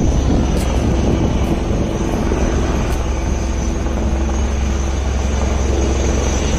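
Helicopter running close by: a steady heavy rumble of rotor and engine noise with a thin, steady high whine over it.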